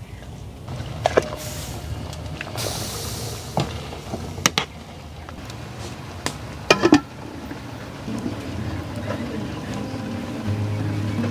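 A metal ladle clinks against an aluminium stockpot a handful of times, over the low rumble and bubbling of beef-bone broth simmering for bún bò Huế. Music comes in near the end.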